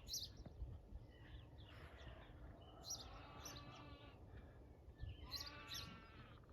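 Sheep bleating faintly in the distance, a few separate bleats, with small bird chirps over them.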